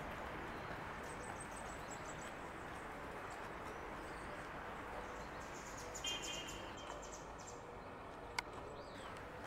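Steady outdoor background noise with birds chirping; a short burst of bird calls about six seconds in, and a single sharp click near the end.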